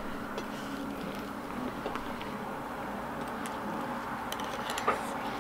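A person eating quietly with a fork: a few faint clicks and mouth sounds in the second half, over a steady low background hum.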